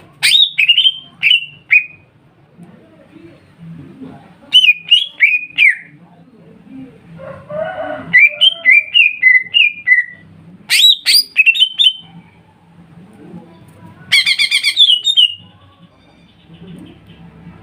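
Greater green leafbirds (cucak ijo) singing in loud phrases of repeated, down-slurred whistled notes, with a fast trill about two-thirds of the way through.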